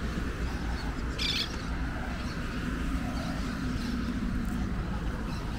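Street ambience: a steady low hum of road traffic, with one brief high-pitched sound about a second in.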